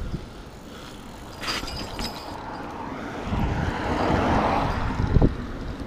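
Wind buffeting the microphone and tyre noise from a moving bicycle, with a short clatter of the bike about a second and a half in and a thump near the end.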